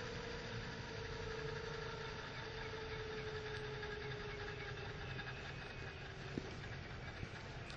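Scale Bell 222 model helicopter winding down on the ground, rotor slowing: a whine that falls slowly in pitch and fades out about six seconds in, over a steady low rumble, with a single click just after. The recording runs at half speed, which lowers the pitch.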